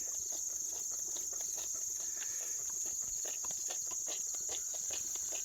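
Steady high-pitched chorus of crickets and other insects, with a run of irregular soft clicks.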